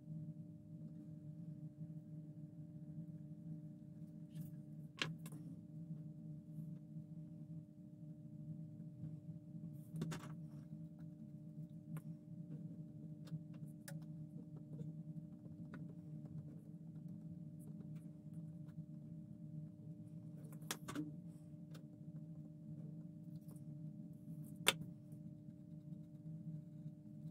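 Steady low hum of a fan or electrical equipment, with several faint, scattered clicks and taps of small objects being handled; the sharpest click comes near the end.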